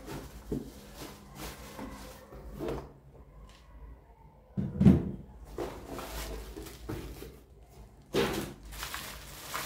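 Cardboard box and plastic packaging being handled while an electric kettle is unpacked: scattered knocks and rustles, with one loud thump about five seconds in and a burst of rustling a little after eight seconds.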